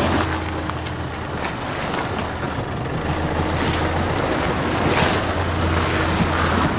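A Nissan Navara 4WD ute crawling slowly along a rutted dirt track, its engine running at low revs in a steady drone. A few clicks and knocks come from the tyres and stones under the wheels.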